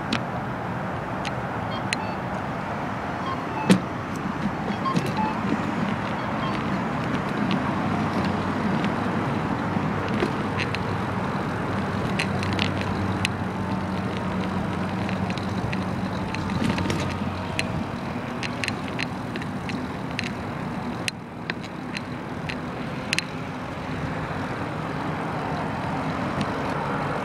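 Road traffic noise with a steady low engine hum, and many short, sharp clicks throughout.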